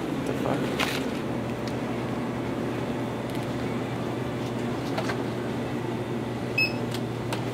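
Convenience-store room tone: a steady low hum under an even noise, with a few sharp clicks and one short high beep about six and a half seconds in.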